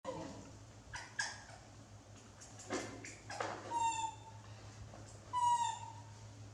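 A young pet monkey calling twice, each a short, high, steady-pitched call that dips slightly at the end, one about midway and one near the end. A few short clicks and knocks, like handling or eating noise, come before the calls.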